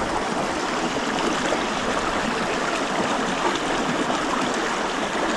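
A small creek's water running steadily.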